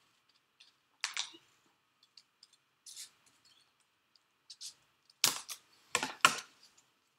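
Scissors snipping through several layers of folded paper: a handful of separate crisp snips and clicks, the three loudest close together near the end.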